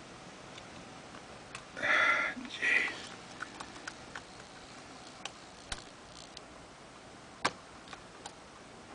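Scattered small sharp clicks and ticks of a lock pick and tension wrench working the pin stack of a four-pin padlock, the loudest about three-quarters of the way through. Two short, loud breath sounds come about two seconds in.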